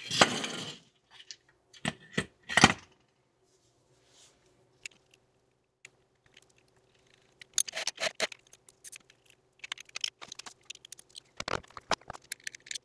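Small metal parts clinking and scraping in scattered bursts while a small electric winch is set down over threaded anchor studs on a concrete floor and its mounting nuts and washers are handled. There is a clatter at the start, a few clinks about two seconds in, a run of clicks around eight seconds, and a sharp knock near the end.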